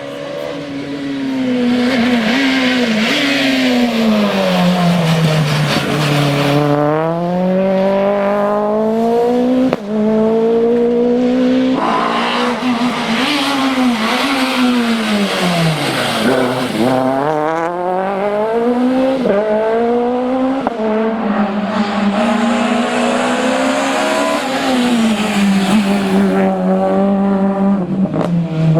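Citroën C2 rally car engine at full throttle, its pitch climbing through the gears and dropping sharply on lifts and downshifts, over and over.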